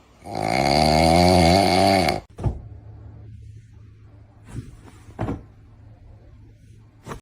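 A pet's long, wavering vocal sound lasting about two seconds that cuts off sharply, followed by a low hum and a few faint knocks.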